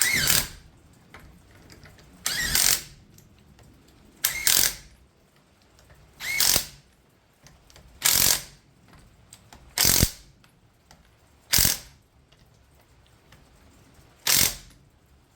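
Power wrench running lug nuts down onto a wheel in eight short bursts, about one every two seconds.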